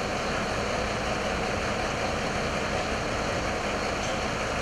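Fire engine's diesel engine running steadily at idle close by, a constant even rumble and hiss.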